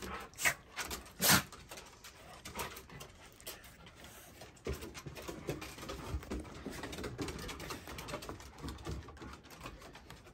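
Knocking, scraping and rubbing on a phone's microphone as a capuchin monkey clambers over the phone, with two loud bumps near the start and many small clicks after.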